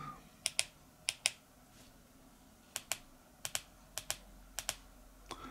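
Plastic keypad buttons of a Baofeng 5RH Pro handheld radio clicking as a frequency is keyed in, about seven presses, most heard as a quick double click of press and release, spaced unevenly.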